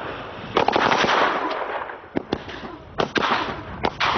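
A bundle of Mammon firecrackers going off: after a short hiss, a rapid burst of cracks about half a second in, then single loud bangs scattered over the next few seconds.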